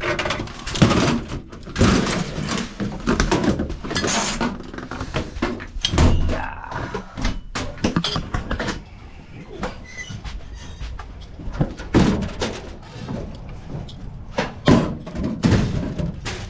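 Irregular thumps, knocks and rattling of heavy tools and cases being handled and lifted out, with what sounds like a door or compartment sliding and banging.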